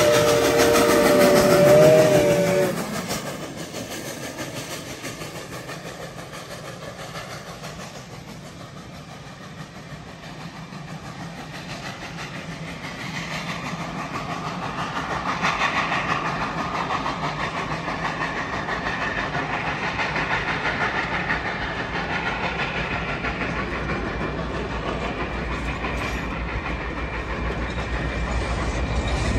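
Steam whistle of Reading & Northern 425, a Baldwin 4-6-2 Pacific locomotive, sounding a chord of several tones that bends slightly and cuts off about two and a half seconds in. Then the train's passenger coaches roll past, steel wheels running on the rails, getting louder from about halfway.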